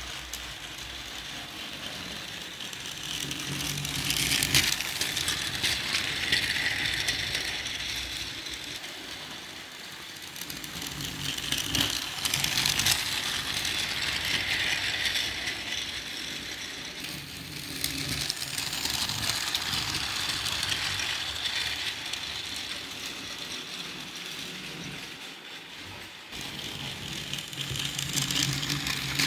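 Battery-powered toy train running on its plastic track, a steady mechanical clatter and rattle of its geared motor and wheels. It swells louder roughly every seven or eight seconds as the train comes past on its loop, then fades.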